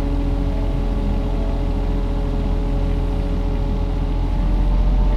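Kubota mini excavator's diesel engine running steadily while working, with several steady tones over a low rumble; it grows a little louder near the end.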